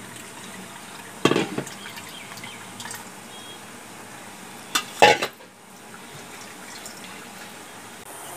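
Ground coconut paste and milk being poured from a steel vessel into a steel strainer, the liquid running through into the bowl, with two sharp clanks of steel utensils knocking together, about a second in and again about five seconds in.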